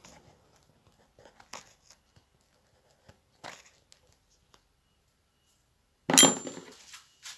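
Faint clicks and rustles of tools and parts being handled on a workbench, then a loud metallic clank with a brief ring about six seconds in.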